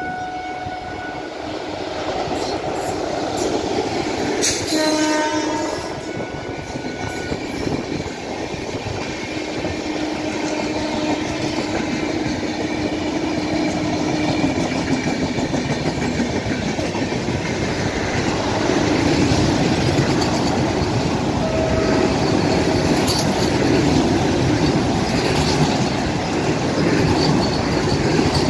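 Indian Railways electric locomotive sounds its horn about four seconds in as it approaches, with a second long horn note a few seconds later, followed by its train of LHB coaches running past with a rising rumble and clickety-clack of wheels on the rails. By the end a Vande Bharat electric trainset is running past close by.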